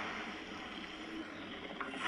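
Custom-made Godzilla creature sound effect: a rough, breathy noise without a clear pitch, with a small click near the end.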